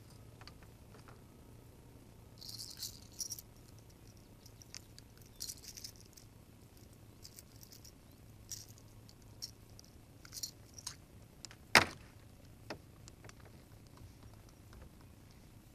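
Light metallic jangling and rattling from unhooking a just-caught bass from a lure, in a few short clusters, with one sharp click about twelve seconds in.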